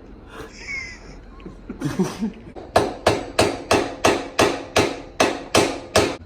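A hammer striking about ten times in quick, even succession, roughly three blows a second, each with a brief ring. It is trying to drive a seized part out of the Yamaha Banshee's swing arm.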